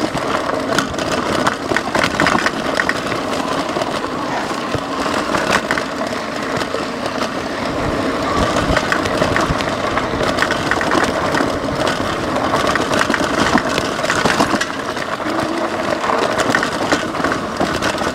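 Lectric XP 3.0 e-bike on a rough, rocky dirt trail: fat 20 x 3 inch tyres crunching over gravel and stones, with the bike clattering and rattling over the bumps without a break.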